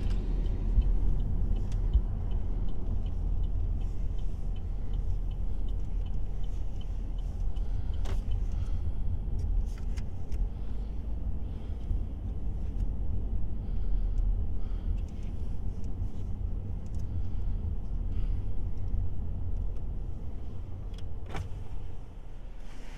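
Road and engine noise heard inside a moving car's cabin: a steady low rumble with a few brief faint clicks.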